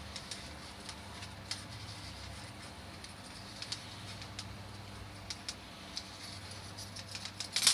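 Steel recoil-starter spring of a Stihl TS400 cut-off saw being wound by hand into its metal cup, giving scattered light metallic clicks and ticks as the coil slips into the housing, with a louder flurry of clicks near the end.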